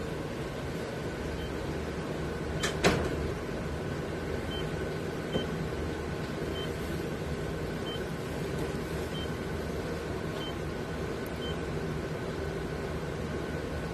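Steady equipment hum with a short high electronic beep repeating about every second, the pulse beep of an anaesthesia monitor on the anaesthetised dog. A single sharp click about three seconds in.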